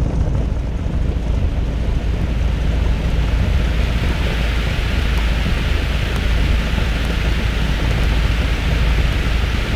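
Cessna 172 Skyhawk's piston engine and propeller running steadily at low taxi power, a constant low drone with a rushing hiss, as heard inside the cockpit.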